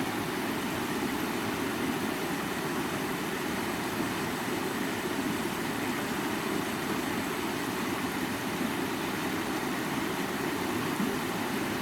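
Creek water running steadily, an even rushing noise that does not change.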